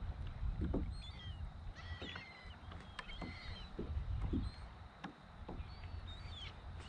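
Small waves lapping and slapping against a plastic kayak hull in short, irregular splashes, over a low wind rumble on the microphone, with faint bird calls now and then.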